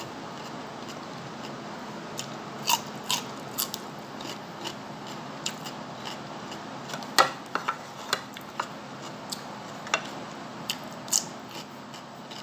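Close-up eating sounds: chewing and crunching crispy fried fish, heard as irregular sharp crisp clicks and smacks over a steady low hum.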